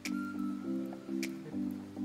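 Background music with a steady beat: a repeating pattern of short low notes, marked by a bright tick a little more than once a second.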